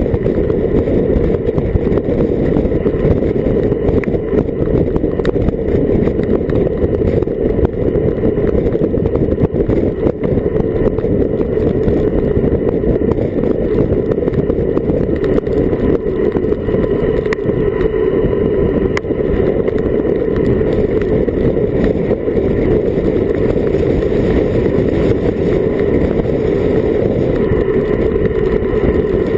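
Wind buffeting the microphone of a Garmin VIRB action camera on a bicycle descending at 30 to 40 km/h: a steady, loud, low rushing noise.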